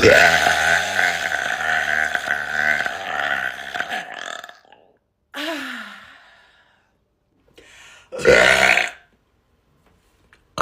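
A woman burping loudly: one long, low burp lasting about four seconds, then a second, shorter burp about eight seconds in.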